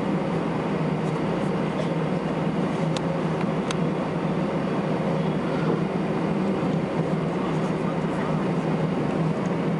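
Steady cabin noise inside an Airbus A321 on the ground before takeoff, its jet engines at idle: an even hum with a strong low drone and no change in level.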